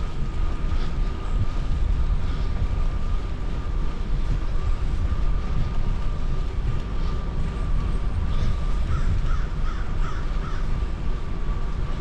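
Crows cawing, a run of short harsh calls in the second half, over a steady low rumble of wind on the microphone from riding.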